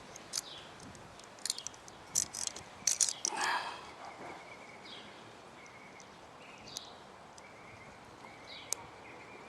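Scattered light clicks and scrapes from small parts being handled and pressed as a magazine release spring and plunger are worked into an FN PS90's polymer stock, busiest in the first few seconds. Faint outdoor background underneath.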